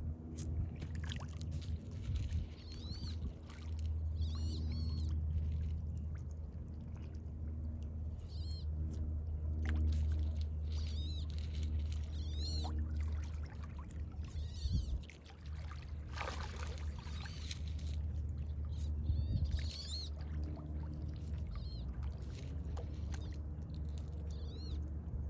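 Water splashing and lapping as turtles feed, with a stronger splash a little past the middle. Birds chirp in short repeated calls over a steady low rumble.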